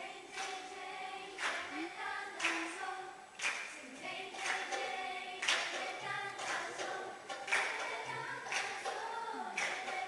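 School choir of girls singing a cappella, with a sharp clap about once a second keeping the beat.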